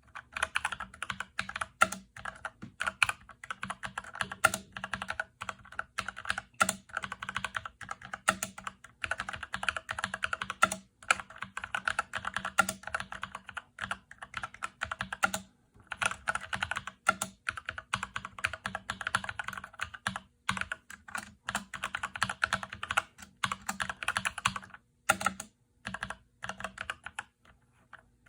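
Typing on a Drop CTRL mechanical keyboard with Glorious Panda tactile switches that have been lubed with G Lube and filmed: a quick, continuous run of key clacks with a few brief pauses.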